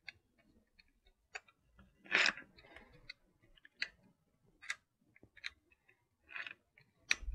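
Metal jigsaw blade being worked into a Ryobi jigsaw's tool-less blade clamp: a series of light clicks and small knocks, with a short scrape about two seconds in, as the blade shank is pushed and wiggled to seat and latch in the clamp.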